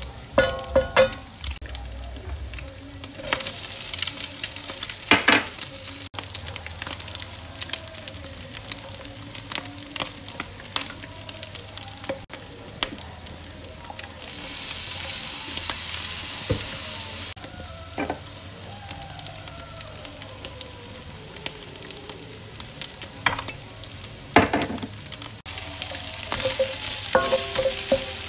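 Egg and rice sizzling in a hot wok while a wooden spatula stirs and scrapes them against the pan, with frequent sharp scraping clicks. The sizzle swells louder in spells, about three seconds in, around the middle, and again near the end.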